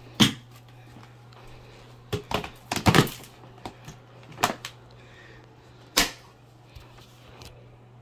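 Hoover bagless upright vacuum running with a steady low hum while it picks up birdseed from carpet. Sharp clicks and cracks as seeds are sucked up and strike the clear dust cup, a single loud one at the start, a quick cluster two to three seconds in, and more about four and a half and six seconds in.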